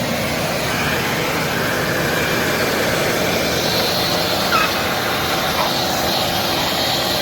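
Craftsman 4-gallon, 5-peak-HP wet/dry shop vac running, a loud, steady rush of motor and air noise.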